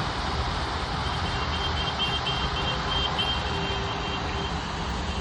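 Excavator running with a steady rumble while its high-pitched warning alarm beeps rapidly, about three beeps a second, from about a second in for some three seconds.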